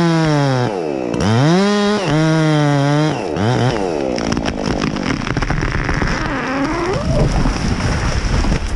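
Chainsaw revving up and dropping back three times, then running for several seconds with a rougher, lower, wavering sound.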